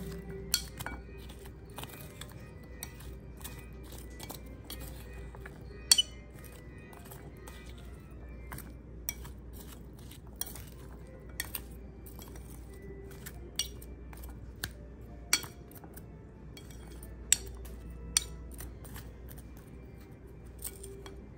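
Spoon tossing a chopped salad in a bowl, clinking against the bowl's side at irregular moments, a dozen or so sharp clinks with the louder ones about six and fifteen seconds in.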